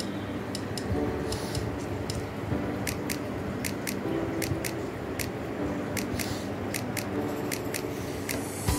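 Small scissors snipping: an irregular run of light, sharp clicks, about two or three a second.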